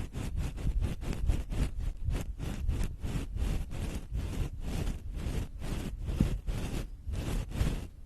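Fast scratching and rubbing strokes close on a microphone, about three or four a second, with a heavy low rumble under them.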